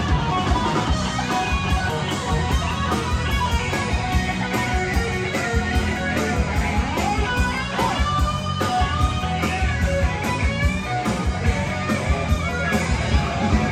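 Band music led by electric guitar, with bending guitar notes over a steady low rhythm.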